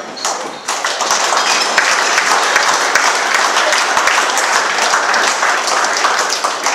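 A room full of people applauding: dense, steady clapping.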